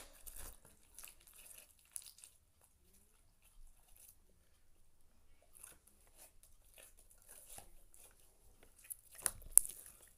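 Hands squishing and stretching a large mass of glitter slime: irregular sticky crackles and pops, with a louder cluster of pops near the end.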